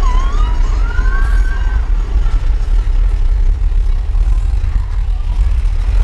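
Big Thunder Mountain Railroad mine-train roller coaster running along its track, a loud, steady, deep rumble. A high wavering sound rides over it in the first two seconds.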